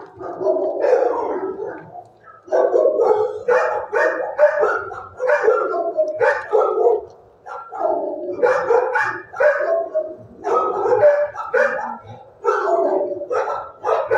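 Shelter dogs barking almost without pause, in overlapping runs with short lulls every few seconds.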